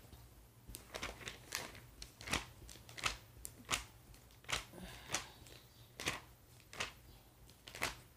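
Pages of a glossy product catalogue being leafed through by hand: a string of about a dozen quick, crisp paper swishes and flicks.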